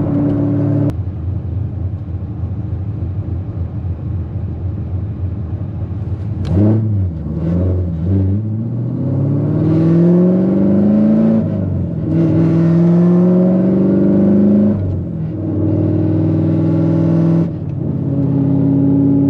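Cammed C7 Corvette Z06's supercharged 6.2-litre V8 heard from inside the cabin. It runs steadily at cruise, then about six seconds in it is put under hard acceleration. The engine note rises in pitch twice, falling back sharply after each climb, then settles to a steady cruise again.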